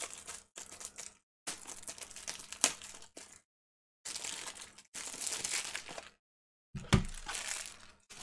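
Trading-card pack wrappers crinkling and tearing as packs are ripped open, in bursts broken by short silences. There is a sharp tap about two and a half seconds in and a heavier thump about seven seconds in.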